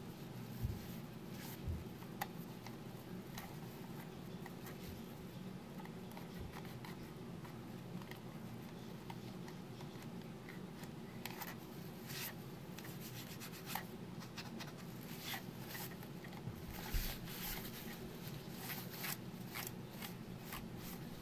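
A cleaning wipe being rubbed and worked by hand over a plastic computer mouse: scattered faint rustling and scratching, busier in the second half, over a steady low hum.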